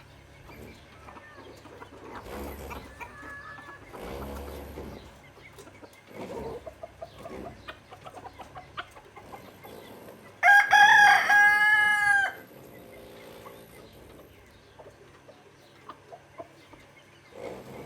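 Chickens clucking, with a rooster crowing once, loudly, about ten seconds in; the crow lasts about two seconds.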